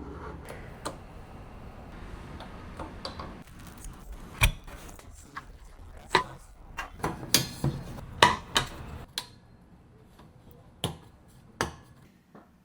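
Irregular clicks and knocks of small hard parts being handled and fitted together, as in assembling a small PC. The clicks come thickest in the middle. A low hum under them stops about nine seconds in, and two more clicks follow near the end.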